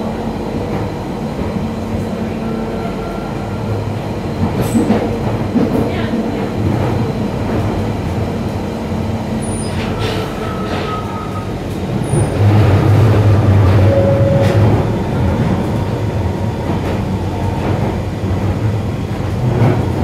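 Inside a London Underground 1992-stock tube train running through the tunnel: a steady rumble of wheels on rail and traction motors, with a few brief wheel squeals and clicks. The rumble grows louder about twelve seconds in.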